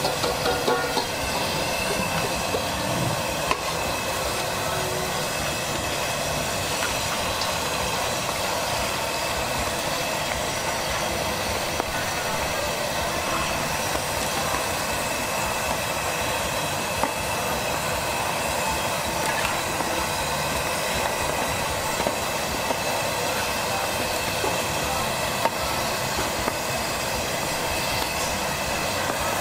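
Squid deep-frying in a large wok of hot oil: a steady sizzle and bubbling, with a few sharp clicks of the metal ladle against the wok.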